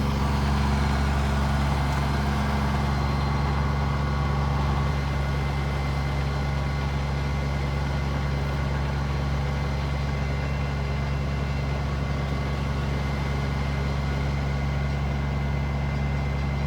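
A large engine idling steadily, a constant low hum that does not change.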